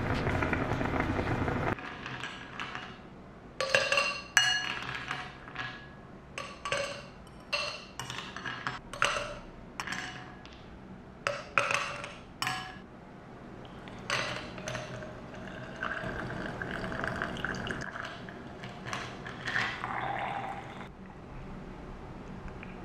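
A stovetop moka pot sputtering as coffee gushes into its upper chamber, cutting off about two seconds in. Then a long run of sharp clinks as ice cubes drop into glass, followed by liquid pouring over ice in a glass.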